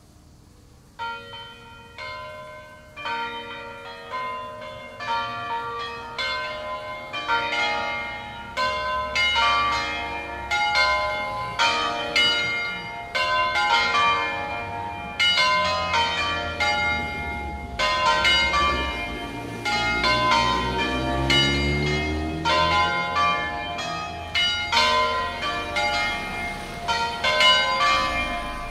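A peal of five swinging church bells, tuned B♭, C, D, E♭, F, starting up in a full 'distesa' ringing. The first strokes come about a second in, single and spaced at first, then ever faster, denser and louder as the wheel-swung bells rise higher and overlap, each stroke ringing on.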